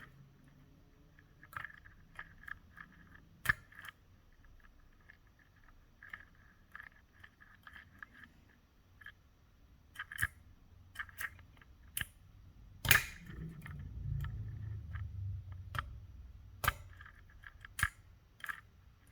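Lock pick scratching and tapping on the spool pin stacks of a Scorpion CX5 lock under tension, with scattered sharp clicks as the pins move and set toward a small false set. The loudest click comes about 13 seconds in and is followed by a low rumble of handling for a few seconds.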